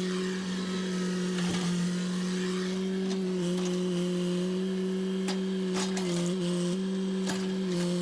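An engine running steadily at an even pitch, dipping briefly a few times, with a few sharp knocks or cracks over it.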